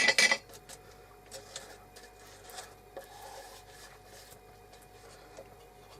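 Sealant being worked onto wood edges: a brief clatter of clinks in the container at the start, then faint rubbing strokes with scattered light taps on the wood.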